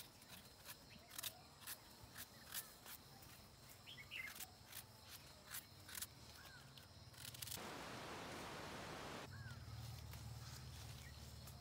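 Faint outdoor ambience: scattered light clicks and handling noises, a few brief bird chirps, a short spell of rustling, and a steady low hum.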